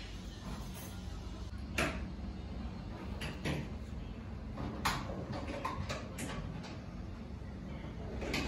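About half a dozen light knocks and clicks, spread unevenly, over a faint steady low rumble.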